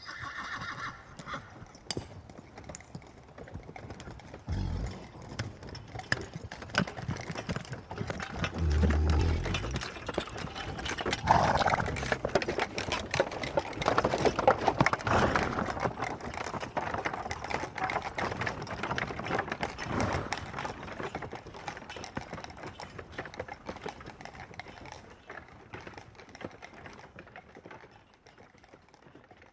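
Horse-drawn cart passing by: clip-clopping hooves with the rattle of the harness and cart, growing louder to a peak midway and then fading away. A horse whinnies briefly at the start.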